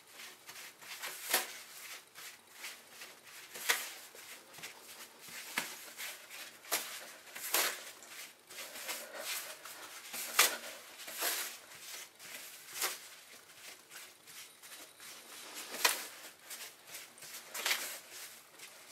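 Toilet paper rustling and crinkling as it is unrolled by hand and pressed underfoot on a tile floor, in irregular sharp crackles every second or two.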